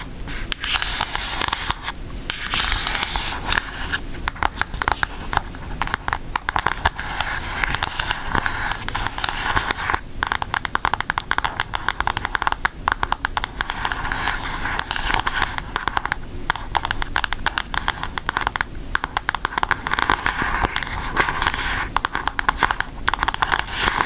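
Long acrylic nails tapping and scratching on the front cover of an eyeshadow palette: a dense, rapid run of clicks and scrapes with a few brief pauses.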